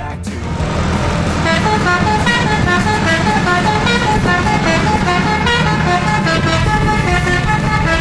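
A tour bus's Basuri musical air horn playing a quick tune of short notes that step up and down in pitch, starting about a second in, over the low rumble of the bus's engine.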